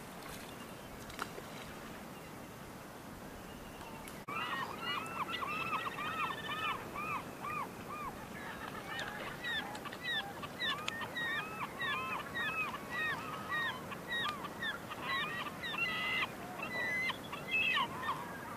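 A flock of birds calling, a rapid run of short arching calls several times a second, starting about four seconds in and going on to the end, over a faint steady hiss.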